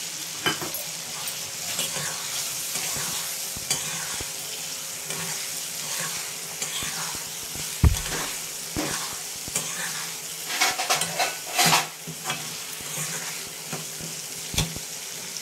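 Green peas and masala sizzling in hot oil in a kadai while a spatula stirs and scrapes the pan, with a sharp knock about eight seconds in and a quicker run of scraping a few seconds later.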